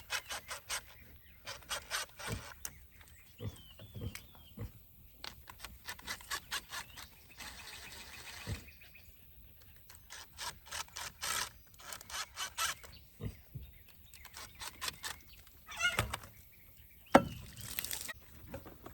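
Hand-work on a pool pump hose connection: scattered plastic clicks, taps and rubbing as the hose is worked loose from its fitting, with a short scraping stretch about halfway through and one sharp, louder click near the end.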